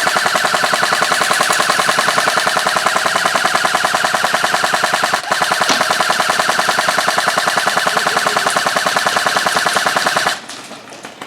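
Airsoft gun firing on full auto close by: two long bursts of rapid, even shots with a brief pause about five seconds in. The firing stops near the end.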